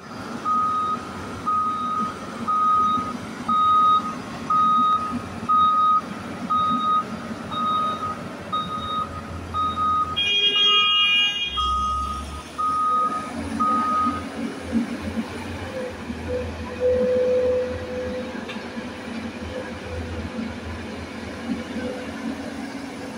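Heavy-equipment backup alarm beeping about once a second over a diesel engine running steadily. The beeping stops about fourteen seconds in. A brief horn-like tone sounds about ten seconds in.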